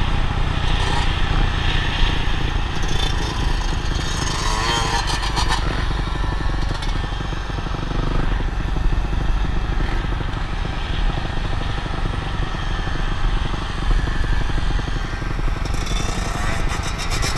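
Motocross dirt bike engines running at road speed under a steady rush of wind noise, with the revs wavering up and down briefly about four seconds in and again near the end.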